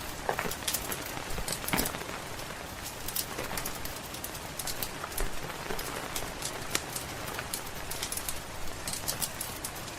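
Steady rain pattering, mixed with frequent short, sharp crackles and pops of a wood fire burning in a fireplace.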